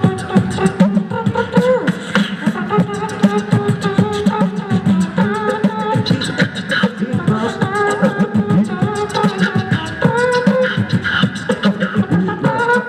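Beatbox crew performing live into microphones: several voices making a fast drum-kit beat, with a sustained sung melody line layered over it.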